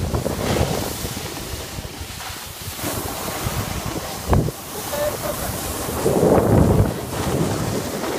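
Snowboard sliding and scraping over groomed snow with wind rushing over the phone's microphone, swelling and easing as the rider carves, loudest about six seconds in. A short knock sounds a little past four seconds.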